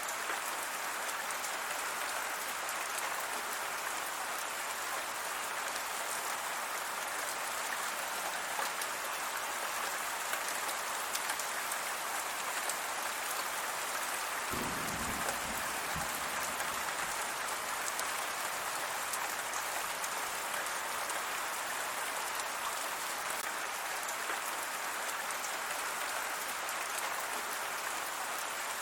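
Steady rain falling on a surface, an even hiss of many drops. A brief low rumble sounds about halfway through.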